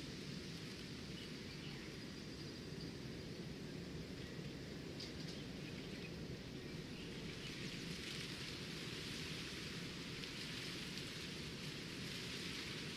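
Steady rain falling, its hiss growing louder about halfway through, with a few faint bird calls in the first half.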